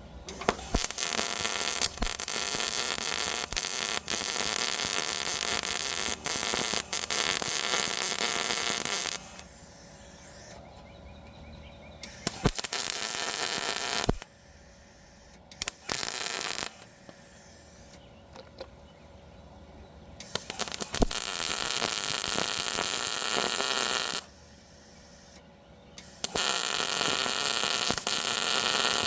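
Eastwood MP140i MIG welder's arc crackling as it welds a patch onto thin car body sheet metal, in five runs: the first about nine seconds long, the others shorter, with brief pauses between them.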